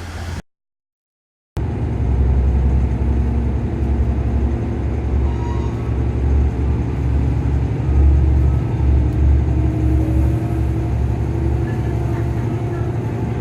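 A diesel railcar's engine running, heard as a loud, steady low rumble with faint humming tones above it. It starts after about a second of silence near the start.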